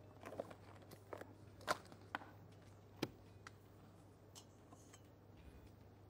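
Faint handling sounds at a kitchen counter: a few light knocks and clicks, three of them sharper in the first half, over a low steady hum.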